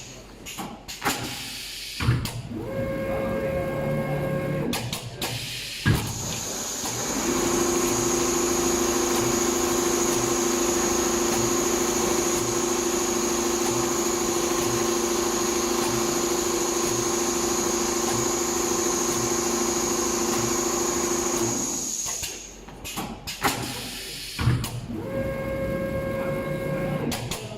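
Richpeace multihead computerized leather sewing machine running: a steady whine with a regular low beat for about fifteen seconds, starting about seven seconds in and stopping near the end. Before and after the run there are sharp clicks and a short steady hum as the machine stops and starts again.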